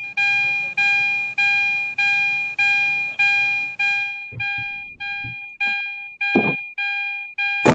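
Repeating electronic warning chime, a ding about one and a half times a second, each ding fading before the next.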